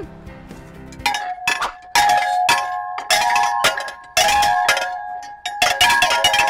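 Playground chimes made of upright metal pipes, struck in quick runs from about a second in. Each strike clangs and rings on in several pitched notes.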